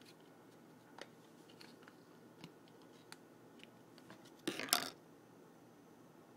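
A hard plastic clamshell processor package being handled and pried open: a few faint sharp clicks, then a louder plastic crackle about four and a half seconds in.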